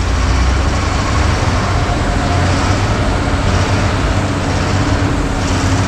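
Truck engine running with a steady low drone and a broad rushing noise, as the truck unloads a load of sand.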